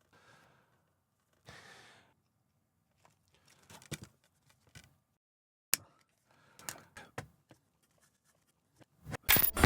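Quiet handling of a boxed steelbook and its wrapping: a soft rustle, then scattered clicks and crinkles, with one sharp click a little past the middle. Music starts just before the end.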